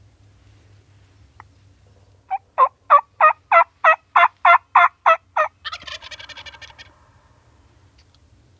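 A loud, close series of about eleven evenly spaced call notes, about three a second. A wild turkey gobbles right after it, a fainter rapid rattling call lasting about a second, in answer to the calling.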